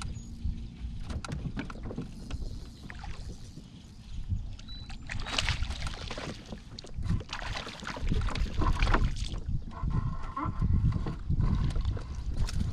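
A hooked bass splashing and thrashing at the surface as it is fought to a small boat and swung aboard, with water sloshing and short knocks against the hull. The splashes and knocks grow louder about halfway through.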